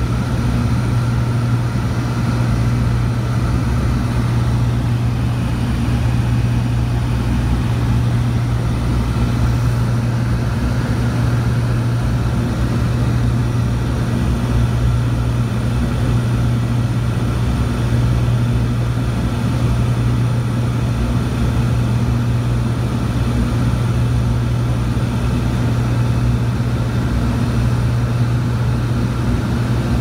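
Light propeller aircraft's piston engine and propeller droning steadily in cruise, heard from inside the cabin.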